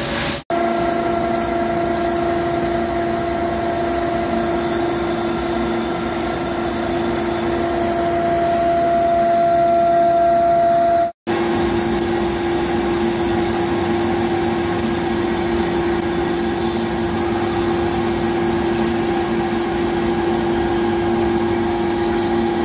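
Hankook PROTEC-9NC CNC lathe running while turning a steel shaft: a steady machine hum with a clear pitched tone over the noise of the cut. The sound cuts off abruptly for a moment twice, about half a second in and again about halfway through.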